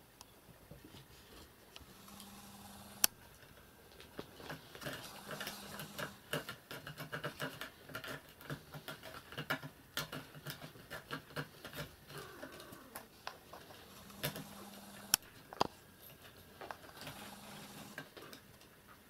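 Cats at play: light, scattered taps and scrabbling of paws and claws on wooden furniture and a carpeted stand, thickest in the middle, with a couple of sharp single knocks.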